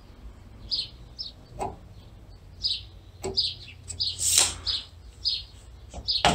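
A small bird chirps over and over with short, high chirps. Among them are a few clicks, a brief scrape about four seconds in and a sharp click near the end, as a tape measure and a piece of chalk are handled at the bowstring jig.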